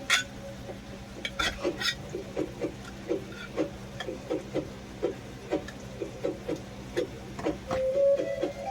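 A spoon or utensil stirring food in a pot, scraping in a quick, even rhythm of about four strokes a second.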